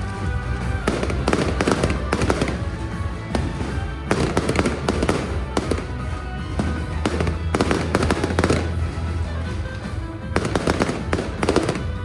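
Aerial fireworks bursting and crackling in several volleys a few seconds apart, with music playing throughout.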